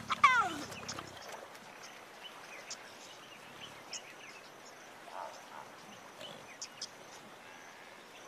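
A large wild animal gives a short, low call in the first second, its pitch falling, followed by a few faint high chirps and ticks over a quiet natural background.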